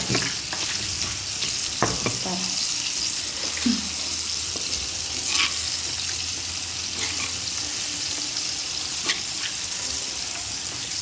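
Oil sizzling steadily around chicken deep-frying in a pan, with a couple of sharp knocks from a stone pestle on a stone mortar as fried chicken is smashed into chilli sambal.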